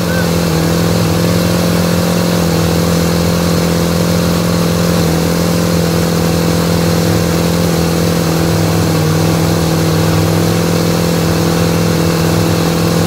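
Mercruiser 350 (5.7 L) V8 with throttle-body fuel injection running steadily at one speed, without cutting out. It is running rough, and the intermittent stalling is suspected to be a fuel-pressure problem.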